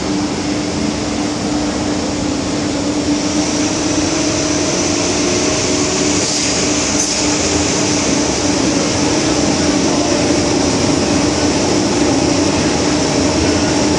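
MTR M-Train subway car running through a tunnel, heard from inside the passenger car: a steady rumble of wheels on rail with a steady hum, and a high hiss that comes in about three seconds in.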